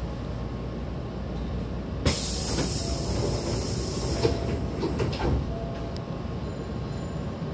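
Hankyu Kyoto Line train's air-operated sliding passenger doors closing. A sudden loud hiss of air starts about two seconds in and lasts about two seconds, and the door panels knock a few times as they slide shut and meet.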